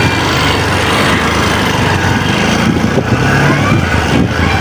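A vehicle engine running steadily while travelling, under a constant rush of road and wind noise.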